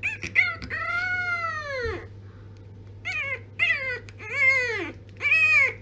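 French bulldog puppy crying in a run of high cries that rise and fall in pitch: three quick short ones, a long drawn-out cry of over a second, then four shorter cries about half a second apart.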